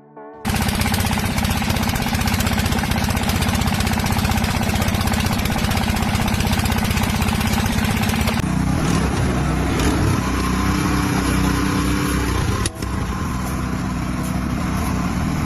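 Loud machinery running with a fast, even rhythm, starting suddenly; about eight seconds in the sound changes to a different machine note, with one sharp click a few seconds later.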